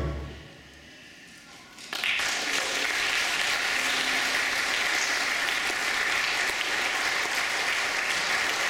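The last sound of the choir-and-percussion piece dies away into a brief hush, then about two seconds in a church audience breaks into steady applause.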